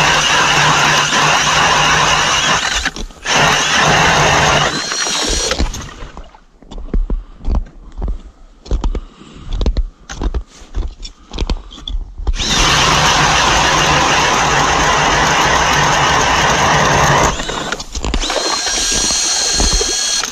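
Cordless drill driving an ice auger through lake ice: two long runs of loud grinding whir, with a stretch of irregular knocks and thumps between them. Near the end the drilling sound lightens and the drill motor's whine comes through.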